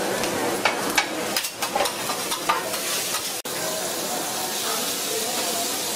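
Metal spatulas clacking and scraping on a hot iron griddle as stir-fried noodles are scooped onto a plate. A cut about three and a half seconds in leaves a steady sizzle of shrimp, squid and green onion frying on the griddle.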